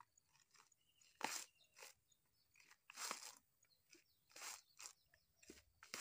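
Dry coconut husk crunching and rustling in several short bursts as it is handled by hand, the loudest about a second in and again around three seconds in.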